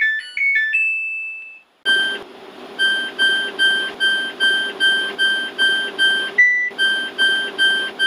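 Samsung washing machine control-panel beeper. First a short tune of electronic beeps at different pitches, the power-on melody. After a brief pause, a fast even run of identical short beeps, about two and a half a second, one per step as the timer's hours count up. One beep at a different pitch breaks in about six and a half seconds in, all over a steady hiss.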